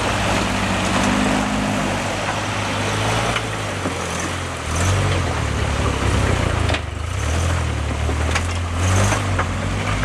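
Lifted Toyota off-road trucks' engines running under load and revving while crawling over rocks and mud, with a rev-up about five seconds in and again near the end. Tyre spinning and mud spatter add a rough noise.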